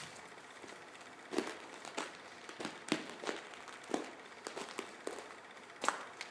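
Footsteps crunching over rubble and grit on a debris-strewn factory floor, about two steps a second, starting about a second and a half in.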